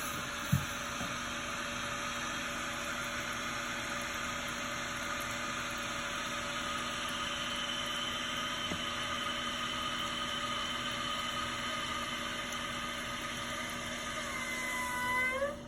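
Toilet fill valve refilling the tank: water hissing through the valve with a steady high-pitched whine over it. Near the end the tones rise in pitch, then the sound cuts off suddenly as the valve closes. The whining and wheezing is the fault that calls for replacing the fill valve; there is also a short knock about half a second in.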